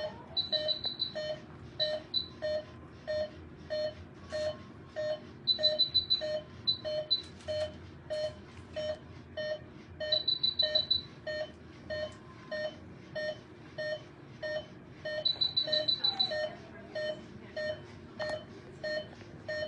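Patient monitor beeping steadily about twice a second, in step with the anesthetized wolf's pulse. About every five seconds a short run of rapid, higher-pitched alarm beeps comes in, roughly four times.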